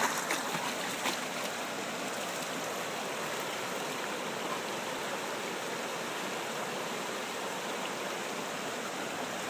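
Shallow rocky stream rushing steadily over stones in a riffle. A few splashes in the first second or so as a dog wades through the water.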